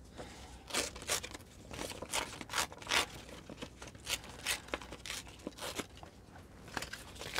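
A sheet of paper being torn by hand in a series of short, irregular rips, with crinkling as the sheet is handled.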